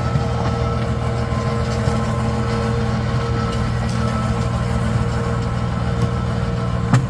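Engine of the machine that forms raised beds and lays plastic mulch, running steadily at a constant speed, with a brief knock near the end.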